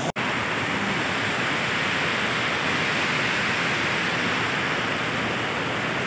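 Large waterfall: a steady, loud rush of heavy falling water, cut off for an instant just after the start.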